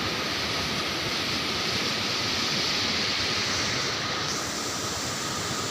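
Steady rush of water from a waterfall, an even noise that shifts slightly in tone about four seconds in.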